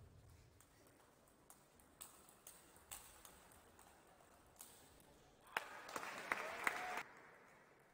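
Table tennis rally: the celluloid ball clicks off the bats and table about every half second. About five and a half seconds in, a short burst of applause and clapping from the arena crowd follows for about a second and a half.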